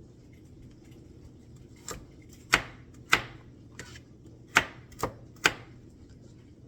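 A knife chopping on a cutting board: six or seven sharp, irregularly spaced strokes, most of them in the second half.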